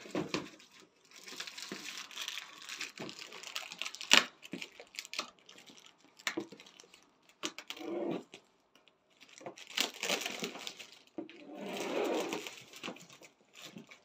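Clear plastic stretch wrap on a cardboard box being cut and pulled off: irregular bursts of crinkling and tearing film, with scattered sharp clicks, the loudest about four seconds in.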